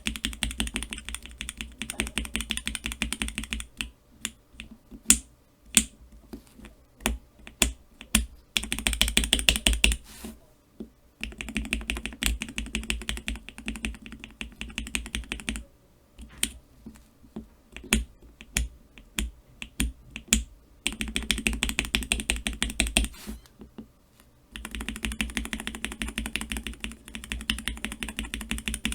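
Cherry MX Black linear mechanical key switches being pressed. Flurries of rapid clacks alternate with slower, separate single presses.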